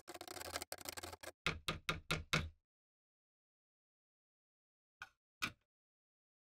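Metal rod stirring inside a plastic jug, rattling and scraping against its sides and ending in about five quick knocks. After a silence, two light clicks about five seconds in, as the hooked saw blade is hung on the jug's rim.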